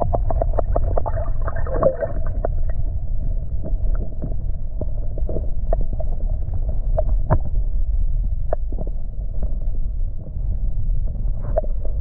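Muffled underwater sound as picked up by a submerged camera: a steady low rumble of moving creek water with scattered small clicks and knocks.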